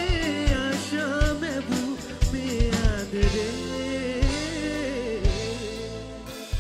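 Live band playing a Sinhala pop song: a male voice singing over electric guitar and a drum kit keeping a steady beat.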